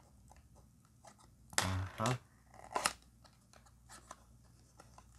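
A small cardboard toy-car box being handled and opened by hand: light clicks and scrapes, with a louder rasping scrape of cardboard about a second and a half in and a sharp snap near three seconds.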